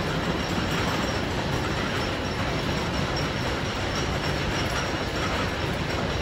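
Wooden roller coaster train climbing the chain lift hill: a steady rumbling clatter of the chain and the train on the track.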